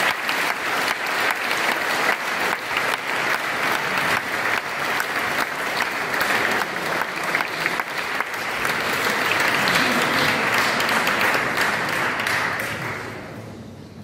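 Audience applauding, dense clapping that swells about two-thirds of the way through and then dies away near the end.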